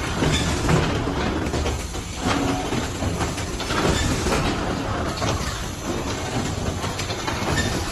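Automatic collapsible box forming machine running: a steady mechanical clatter with frequent clicks and knocks from its moving conveyor and forming parts.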